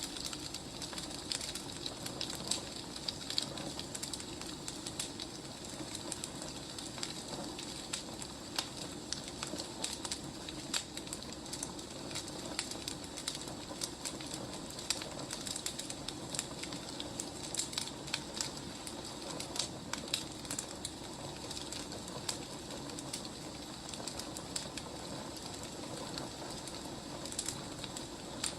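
Wood fire burning in a fireplace: a steady low hiss with irregular sharp crackles and pops from the burning logs.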